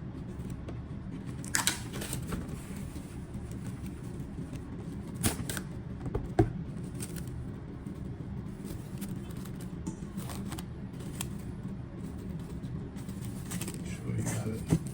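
Scattered sharp clicks and light rustles from kitchen handling, over a steady low hum. The loudest knock comes a little past the middle.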